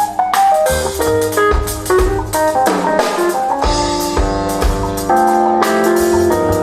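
A small jazz group playing: piano chords and melody over walking double bass, with a drum kit keeping time on cymbals and drums.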